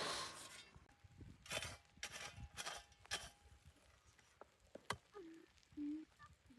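A scatter of light knocks and clicks, then two short low hums near the end.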